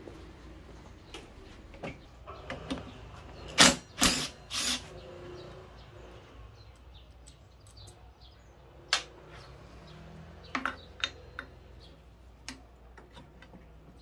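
Knocks and clicks from hands-on work on a scooter's front end: three loud knocks in quick succession about four seconds in, then scattered lighter clicks.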